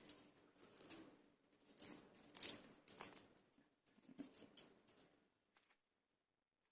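Faint clicks and rustling as a set of small silver magnetic balls is handled, the balls snapping against each other. The sound dies away about five seconds in.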